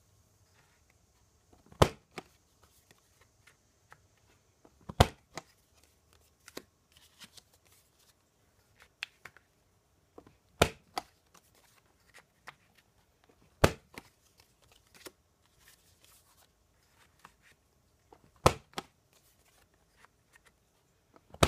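Stampin' Up Envelope Punch Board's corner-rounder punch pressed down through folded cardstock: about six sharp clacks a few seconds apart, with soft paper rustling and sliding between them as the card is turned and repositioned for the next corner.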